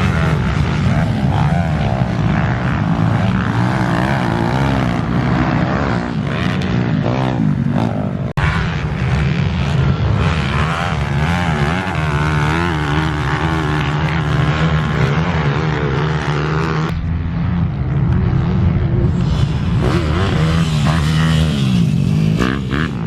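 Minibike engines racing on a track, revving up and down continuously, with abrupt changes in the sound about 8 and 17 seconds in.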